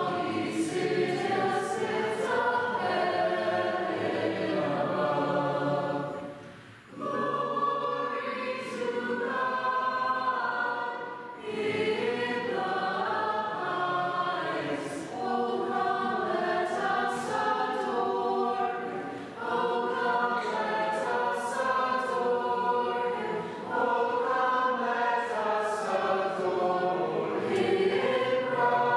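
A small ensemble of high school madrigal singers singing in several parts. The phrases are sustained and broken by short pauses for breath, the deepest of them about a quarter of the way in.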